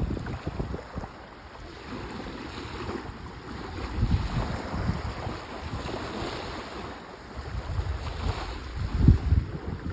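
Small sea waves lapping and washing onto a sandy shore, with gusts of wind rumbling on the phone's microphone; the strongest gust comes about nine seconds in.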